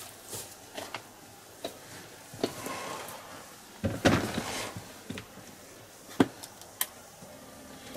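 A man climbing onto a parked ATV and settling at the handlebars: scattered knocks and clicks, with a scuffling rustle of clothing and gear about four seconds in as he mounts, then a couple of sharp knocks about six seconds in.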